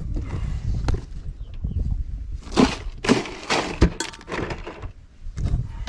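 Clattering knocks and rattles of a caught fish being put into a cooler, with a few sharp clicks and two short loud bursts of rattling about halfway through.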